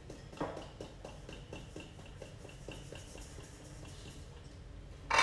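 Hand tapping a steel mesh sieve over a steel bowl to sift ground sugar through: light, quick, even taps. A loud metal clatter comes right at the end.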